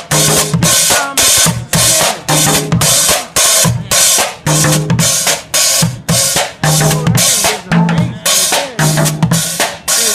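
Bucket drumming: plastic buckets, water jugs and pans struck with drumsticks in a fast, steady beat of sharp hits, some carrying a low booming note.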